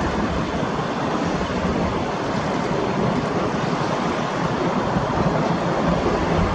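Airbus A321 jet engines making a steady rumbling hiss that holds even throughout.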